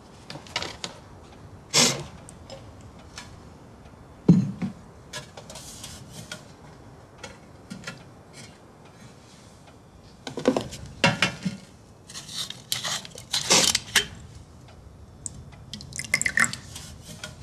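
Glass and metal tableware knocking and clinking on a tray as a vodka bottle and shot glass are handled, with a low thump about four seconds in; near the end vodka is poured from the bottle into the shot glass amid quick clinks.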